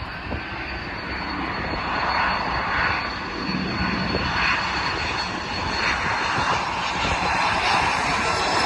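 Jet airliner's engines: a loud rushing rumble with a thin steady high whine, growing louder over the first two seconds and then holding.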